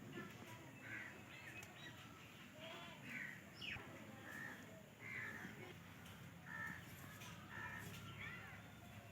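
Crows cawing faintly in the background, a string of short calls about once a second.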